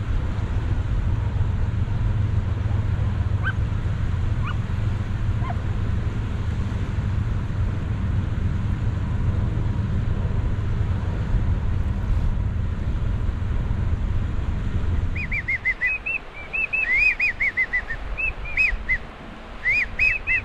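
A steady low rumble that stops abruptly about fifteen seconds in, followed by a quick run of short, high whistled chirps that rise and fall.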